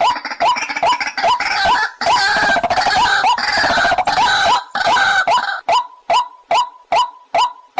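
White-breasted waterhen calling. A harsh, clamorous croaking chorus fills roughly the first five and a half seconds over a string of short, rising notes. After that the short notes carry on alone, evenly repeated about two and a half times a second.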